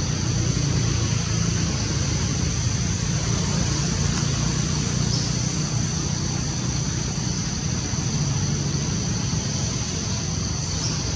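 Steady outdoor background din: a low rumble under a constant high-pitched drone, with no distinct events.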